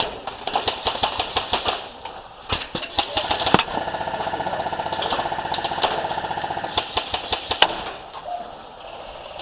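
Airsoft rifles firing inside a corrugated-metal shed: scattered single shots and short bursts, then one long full-auto burst from about three and a half seconds to about seven seconds, with a few more shots after it.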